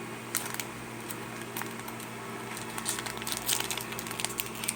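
Light crinkling of plastic and small clicks of Pokémon trading cards being handled, growing busier about three seconds in.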